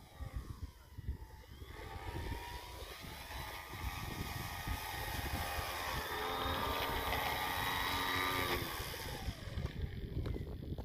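RC autogyro's motor and propeller whine, growing louder as the model flies in close, holding steady, then winding down about nine seconds in as it lands. Wind buffets the microphone throughout.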